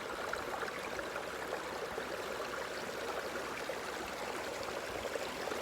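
Steady wash and trickle of sea water at a rocky shoreline.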